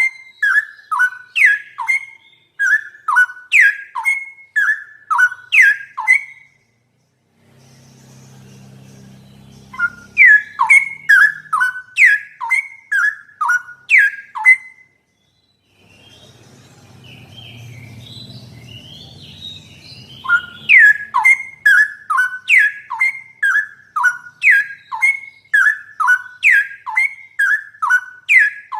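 Straw-headed bulbul (cucak rowo) singing a fast, loud run of repeated clear whistled notes. The song comes in three bouts, broken by pauses about 6 s and 15 s in, with a faint low hum in the gaps.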